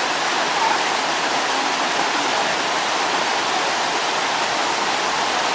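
Mountain stream rushing over boulders: a steady, loud roar of water.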